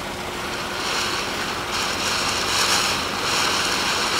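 Ground fountain firework spraying sparks with a steady rushing hiss that swells and eases a few times.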